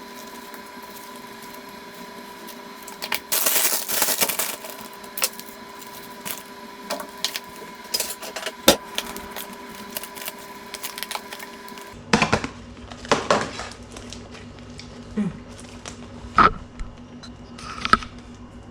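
Food-prep handling sounds while a wrap is filled and rolled: scattered clicks and knocks, with a loud rustle about three to four seconds in, over a steady faint hum.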